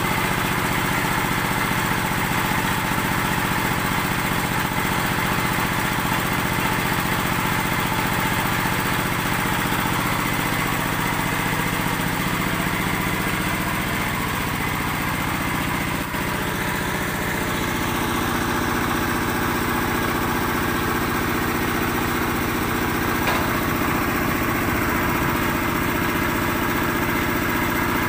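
Small stationary engine of a concrete mixer running steadily at an even speed while concrete blocks are being made.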